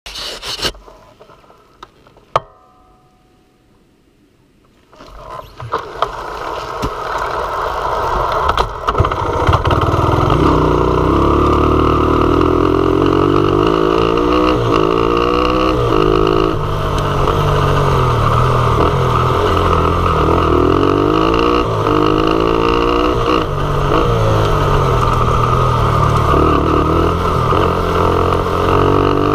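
Dirt bike engine running as the bike rides a dirt trail, its pitch rising and falling again and again as it accelerates and shifts, with wind and wheel noise underneath. The first few seconds are nearly quiet apart from a sharp click about two seconds in; the engine sound builds from about five seconds and is loud from about ten seconds on.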